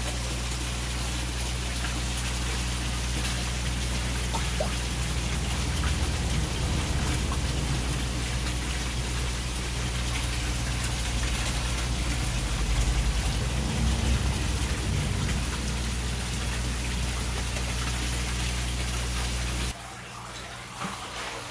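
Water splashing steadily into a koi tank, a continuous rushing patter over a steady low hum. It drops away abruptly near the end.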